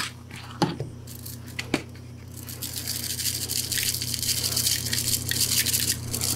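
Spices being shaken from a shaker bottle into a plastic bowl of flour: a rapid rattling hiss of grains falling, starting about two and a half seconds in. Before it come a couple of light knocks, and a low steady hum runs underneath.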